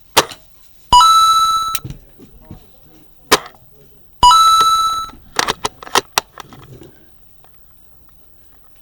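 Two shots from a Novritsch SSG24 spring-powered bolt-action airsoft sniper rifle, about three seconds apart. Each is a sharp crack followed by a ringing metallic tone lasting nearly a second, and short clicks of the bolt being worked come between and after the shots.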